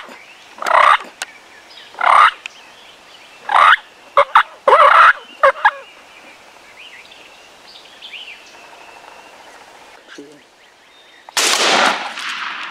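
Wild turkey gobblers gobbling again and again, a loud call about every second for the first six seconds, then a shotgun blast near the end with a long echo fading away.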